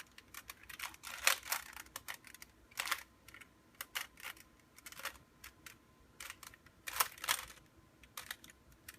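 Rubik's Cube layers being twisted by hand: irregular plastic clicks and clacks as the faces snap round.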